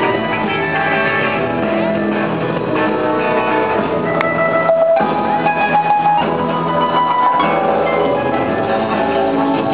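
Live band playing music, with guitar and held instrumental notes.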